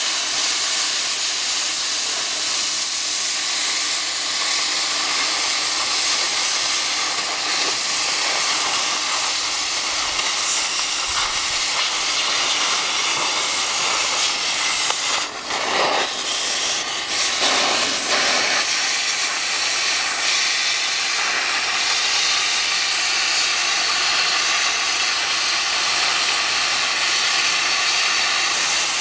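Oxy-fuel cutting torch cutting through the thick steel plate of an excavator bucket ear, a steady hiss of gas and burning metal. The hiss briefly drops and wavers a little past halfway, then runs on steadily.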